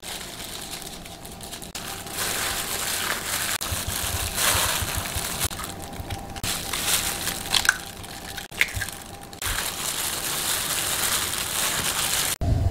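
A hand mixing chopped shrimp, diced vegetables, flour and egg in a stainless steel bowl, making a rough, wet, crunchy noise with scattered clicks. The noise breaks off and restarts a few times.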